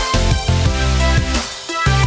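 Electronic background music with deep bass notes and pitched synth lines.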